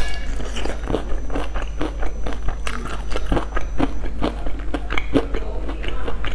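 Close-miked biting and chewing of crispy, sauce-glazed fried chicken: a dense run of irregular crunches and crackles, over a steady low hum.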